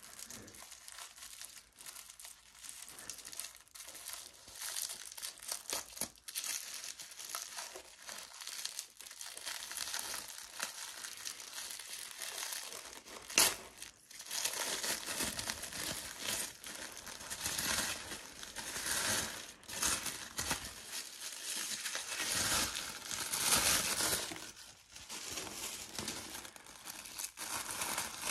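Tissue paper rustling and crinkling as hands pull it off a handbag and its chain strap, growing louder in the second half, with one sharp click about halfway through.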